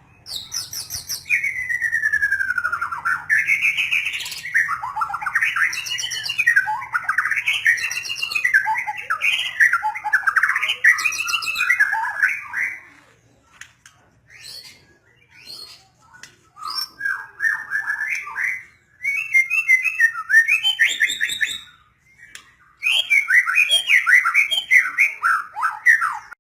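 White-rumped shama (murai batu) singing a long, varied run of rapid whistled and chattering phrases. The song is unbroken for about twelve seconds, stops for a few seconds, then comes back in shorter bursts with brief pauses.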